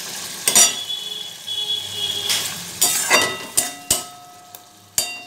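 Thick spice masala sizzling in a metal pan while a flat metal spatula stirs and scrapes it, with several sharp clinks of the spatula on the pan that ring briefly. The masala is being sautéed on low flame until the oil separates.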